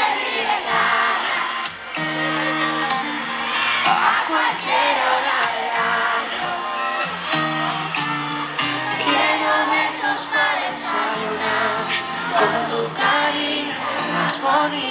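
Live Latin pop concert heard from the audience: a band singing over a bass line of held notes through the stage sound system, with the crowd cheering and shouting.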